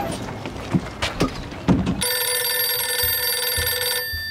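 Telephone bell ringing for about two seconds, starting about two seconds in and cutting off sharply. It is preceded by a few clicks.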